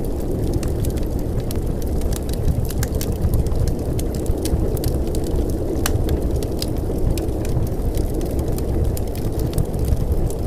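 A steady low rumbling noise with many irregular sharp crackles and clicks scattered through it.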